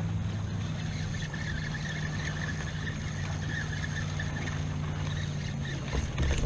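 A motorboat engine running steadily out on the lake, a constant low hum. A few low bumps come near the end.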